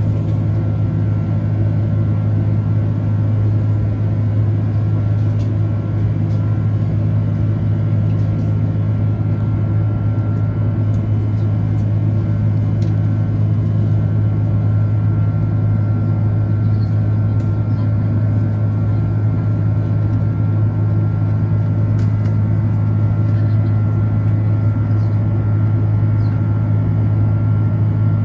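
Airbus A330's Rolls-Royce Trent 700 engines heard inside the cabin during departure: a steady, loud low drone with a buzz and a few constant higher tones.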